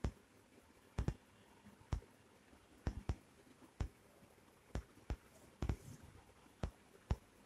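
Sharp clicks about once a second, some of them doubled, over quiet room tone.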